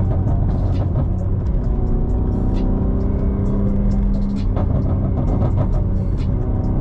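BMW G80 M3's twin-turbo straight-six cruising at a steady engine speed, heard from inside the cabin along with road noise.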